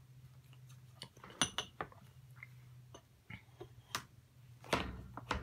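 Scattered light clinks and taps of ceramic pet bowls in a wire cage, knocked by a feeding cat and a gloved hand, with a heavier knock near the end.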